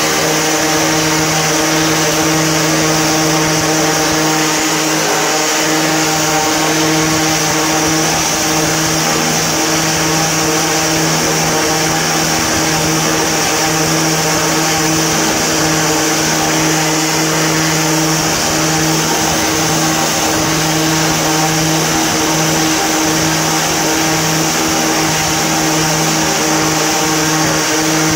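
Angle grinder with a diamond core bit running steadily at constant pitch, grinding a tap hole through a granite countertop with water cooling the cut.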